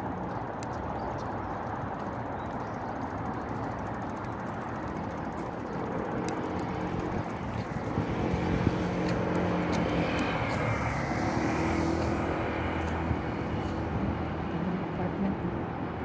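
Outdoor road traffic noise, with a vehicle passing that grows louder from about eight to twelve seconds in.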